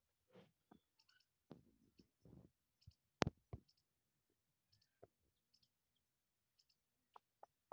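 Near silence broken by scattered faint clicks and brief, thin high chirps, with one sharper click about three seconds in.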